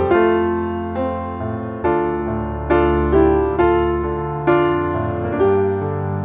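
Slow background piano music. A new chord or note is struck every half second to a second and fades away before the next.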